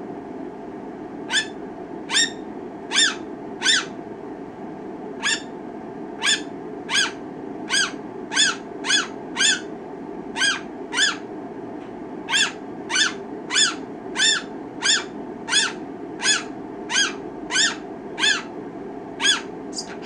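Pineapple green-cheeked conure (Pyrrhura molinae) giving about two dozen short, pitched calls, one after another at uneven gaps of roughly half a second to a second.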